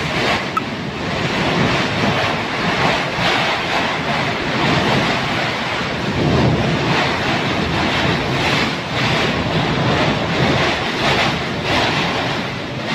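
Strong storm wind blowing through trees in gusts, rising and falling, with wind buffeting the microphone.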